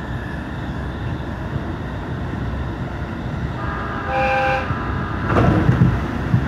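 Steady running rumble of a train heard from inside the carriage. A little past the middle a train horn sounds once for about a second, and just after it the rushing noise swells louder.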